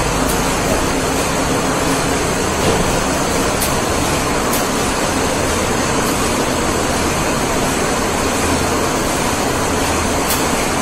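Steady mechanical running noise of a slat-type spiral conveyor and its geared motor drive carrying rolls, with a few faint clicks.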